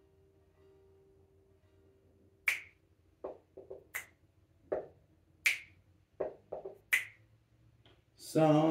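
Finger snaps keeping time: four sharp snaps about a second and a half apart, with softer, lower knocks in between. Singing starts near the end.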